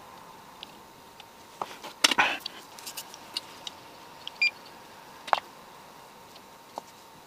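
Scattered small clicks and taps from soldering work on a circuit board, with one louder clatter about two seconds in and a short chirp about halfway through, over a faint steady whine.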